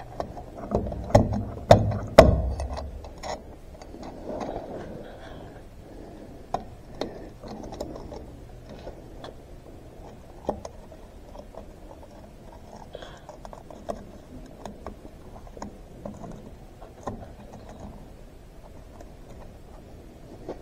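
Scattered small metallic clicks and taps as a steel bolt is turned in by hand into the shift-rail plate of a tractor's shifter cover, started by fingers so as not to cross-thread it. There are a few louder knocks in the first couple of seconds.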